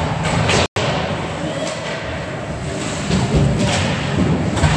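Ice hockey play: stick and puck knocks and thuds against the rink boards, several in a few seconds over steady background noise, with a brief cut-out in the sound just under a second in.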